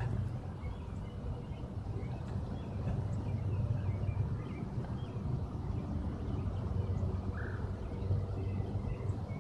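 Outdoor ambience: a steady low rumble with faint, scattered high chirps from birds.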